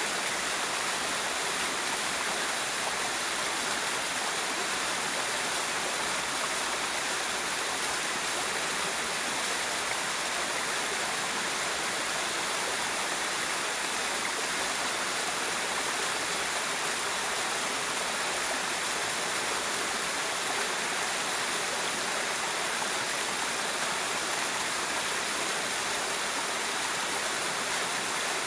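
A river flowing steadily, an even rush of water with no change in level.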